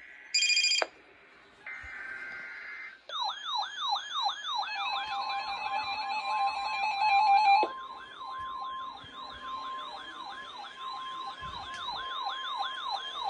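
Emergency Alert System alert tones: a short beep and a brief burst of buzzing data tones, then from about three seconds in a steady alert tone overlaid with a rapidly repeating falling siren-like sweep, about three a second, marking the start of a hurricane and storm surge watch alert.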